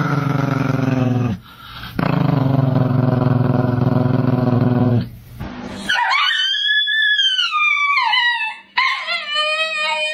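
A Chihuahua growling low, one growl breaking off about a second and a half in and a second lasting about three seconds. Then a husky howls in two long wavering calls, the first rising then falling in pitch, the second lower.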